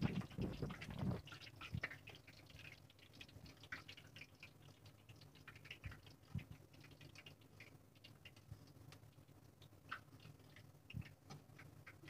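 Hot oil crackling and popping in a steel kadhai as batter in a metal strainer deep-fries into a basket for basket chaat. A few dull metal knocks from the ladle and strainer against the pan come in the first second or so and again about halfway through and near the end.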